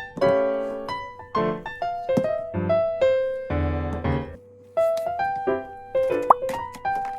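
Background piano music playing a gentle melody of single struck notes, dropping out briefly a little past halfway, with a few light clicks in the second half.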